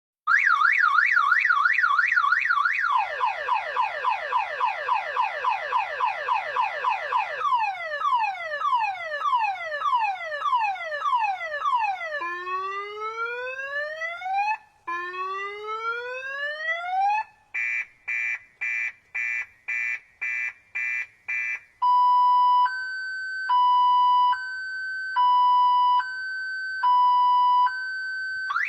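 Car alarm siren stepping through its tone patterns. It starts with a fast warble, then rapid falling chirps, slower falling sweeps, two long rising whoops and a run of quick beeps, and ends on a slow high-low two-tone alternation.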